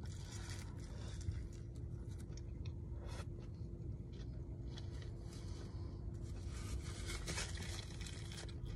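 Close-up mouth sounds of someone chewing a bite of burger, with faint rustling and crinkling of the paper wrapper and a napkin. A faint steady hum runs underneath.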